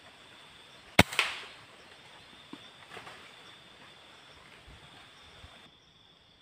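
A single sharp air rifle shot about a second in, followed by a short rattling tail, over steady insects buzzing.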